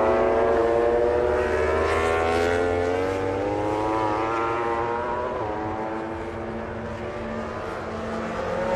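Racing motorcycle engine sound effect: one steady revving note that climbs slowly in pitch over the first few seconds, then levels off and eases down.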